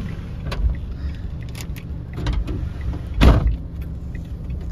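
Car door being shut: a few small clicks and knocks of handling, then one loud thump as the door closes about three seconds in.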